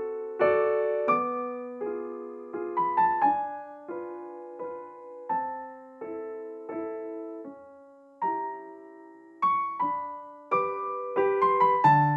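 Background piano music: gentle single notes and chords, each struck and left to ring out and fade.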